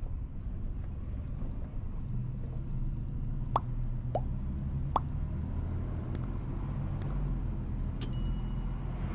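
Truck engine droning steadily, heard from inside the cab while driving, overlaid with subscribe-button animation sound effects: three quick rising plops in the middle, a couple of sharp clicks, then a bell-like ding near the end.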